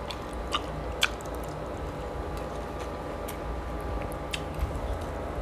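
A person chewing food close to the microphone, with scattered small wet mouth clicks and smacks over a steady low hum.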